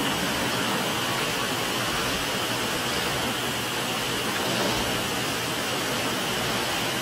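Steady, even hiss of background noise in a large hall, with no distinct footsteps or impacts.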